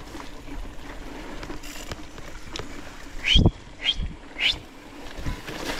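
Trek Supercaliber mountain bike rolling over a rough grassy track, with a heavy knock about halfway through. Three short rising chirps, about half a second apart, come at the same time as the knock and just after it.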